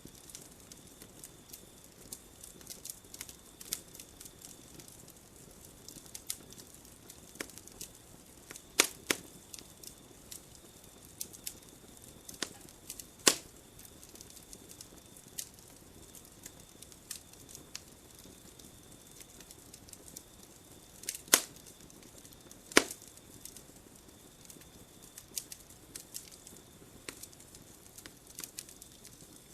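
Wood campfire crackling: a steady scatter of small sharp crackles, with four much louder pops spread through.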